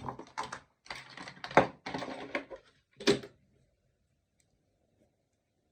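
A quick run of clicking and scraping handling noises for about three seconds, with two sharper clicks, the last just after three seconds in, then quiet.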